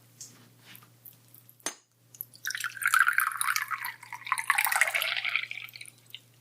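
Tea being poured into a cup, a steady splashing pour of about three and a half seconds that starts about two and a half seconds in, with a light knock just before it.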